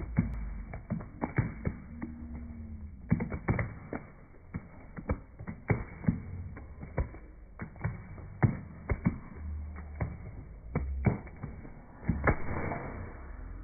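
Scattered hand claps from a few guests, separate sharp claps about one to two a second, irregularly spaced, over a low steady hum.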